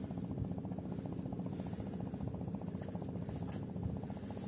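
Small boat engine running steadily with a fast, even beat, with a couple of faint light ticks.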